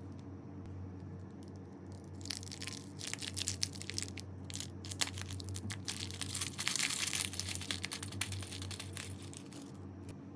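Slime being squeezed and pressed by hand, giving a dense crackling from about two seconds in until near the end, over a steady low hum.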